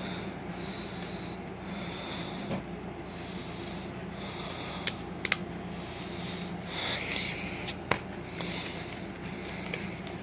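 A DVD disc and its plastic disc tray being handled: the disc is pressed onto the tray's hub with a few sharp clicks about five seconds in, more plastic handling with another click near eight seconds, over a steady low hum.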